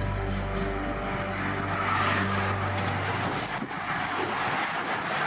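A rushing whoosh of a bunch of racing bicycles sweeping past the roadside, rising about a second and a half in. It comes over loudspeaker music that stops about three seconds in.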